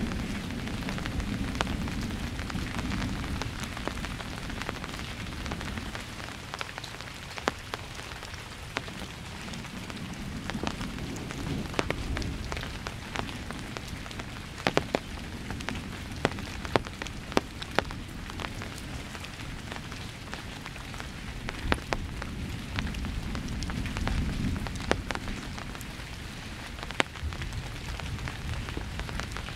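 Steady rain from a thunderstorm, with sharp ticks of drops hitting nearby surfaces. Low rolls of distant thunder rumble at the start, swell again about ten seconds in, and once more near the end.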